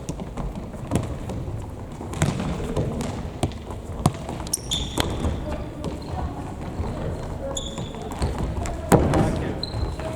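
Indoor futsal play on a gym floor: a futsal ball being kicked and bouncing with sharp knocks, the loudest about nine seconds in, short high squeaks of indoor shoes, and players' voices calling, all echoing in the hall.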